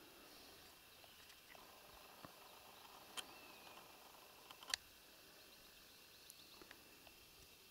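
Near silence: faint outdoor ambience, broken by two short sharp clicks about three and nearly five seconds in.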